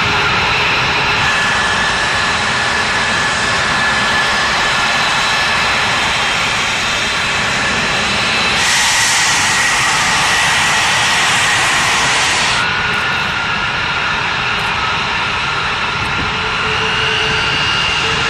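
Twin Pratt & Whitney F119 turbofans of an F-22 Raptor running at taxi power: a steady jet roar with a high, steady whine over it. The tone shifts abruptly twice, about a third and two-thirds of the way through.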